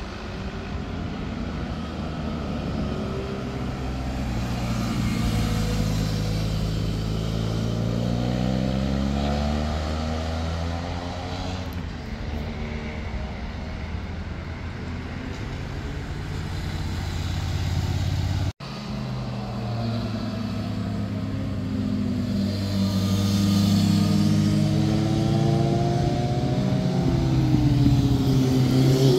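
Motorcycle engines passing one after another on hairpin bends, with passing cars mixed in; engine pitch rises and falls as the riders change gear and open and close the throttle. The sound cuts out suddenly for a moment about two-thirds of the way through, then another bike accelerates in.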